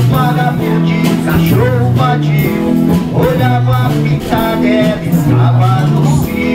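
Live band playing through PA speakers: electric bass, electric guitar and drum kit, with a man singing the melody.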